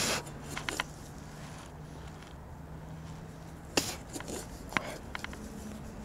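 Digging with a shovel in forest soil: a few sharp chops and scrapes of the blade, the loudest right at the start and about four seconds in, with lighter clicks of soil and stones between.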